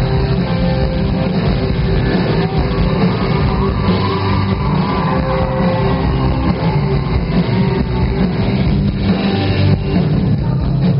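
A live rock band playing loudly over a club PA, with electric guitars.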